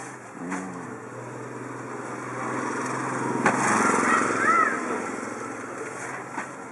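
A small motorbike engine passing along the street, growing louder to a peak about four seconds in and then fading away. A single sharp click comes just before the peak.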